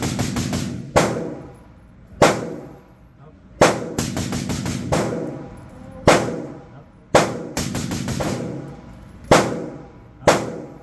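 Suppressed 5.56 AR-15 firing: single shots about a second apart, mixed with quick strings of several shots, each with a reverberating tail in an enclosed range.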